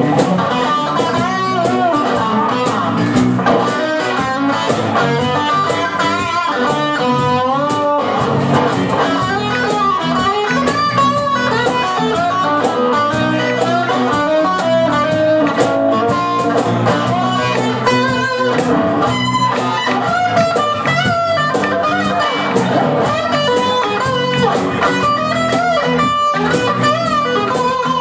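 Live blues-rock band playing an instrumental passage: electric guitar lead lines with bent, wavering notes over electric bass and steady percussion.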